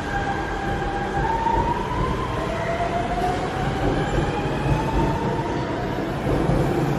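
Metro train noise on the platform: a steady low rumble with a whine that rises in pitch between about one and four seconds in.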